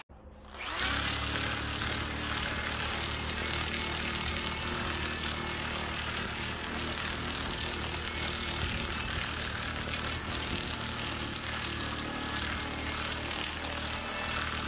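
A handheld DeWalt power tool running steadily with a flexible sanding disc pressed against the torch-burned carved wood, sanding the scorched surface. It starts about a second in.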